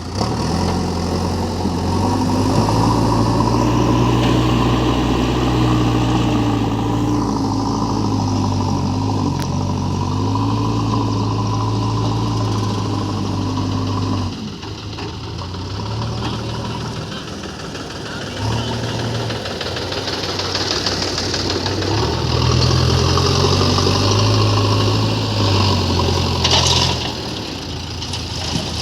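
Diesel engine of heavy earthmoving machinery running under working load, its pitch rising and falling. The engine drops back suddenly about halfway through, then picks up again about two-thirds in, with a brief sharp clank near the end.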